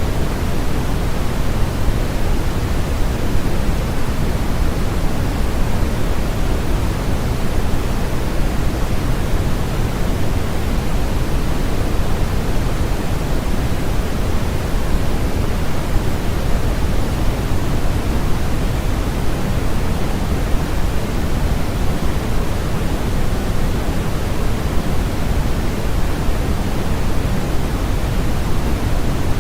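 Steady generated noise: an even, unbroken hiss with no changes, heavier in the low end than in the highs, closer to pink noise than to true white noise.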